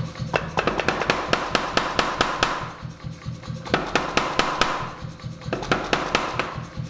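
C41-16 pneumatic forging hammer with a 16 kg ram striking hot steel in rapid, evenly spaced blows, several a second, in three runs with short pauses, over the steady hum of its running motor.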